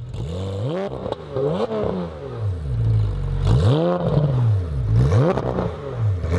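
Car engine revved several times, its pitch climbing and falling with each blip.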